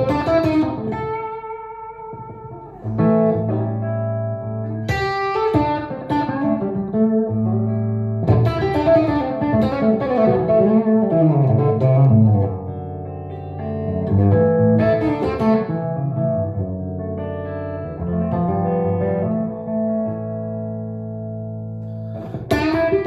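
Telecaster-style electric guitar through an amplifier playing blues lead improvisation: single-note phrases with string bends and vibrato on held notes.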